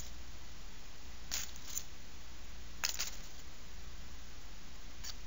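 Steady low electrical hum, with a few brief rustles and a sharp click as painted cardboard cutouts are handled and held up, about a second in and again near three seconds.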